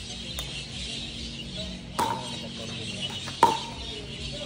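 Two sharp pocks of a pickleball paddle striking the plastic ball, about a second and a half apart, the second louder, over a steady high hiss.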